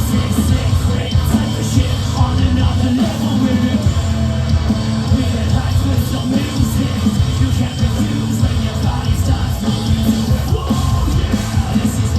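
A live rock band playing loud through a PA, with heavy bass and steady drum hits, and yelled vocals over the top.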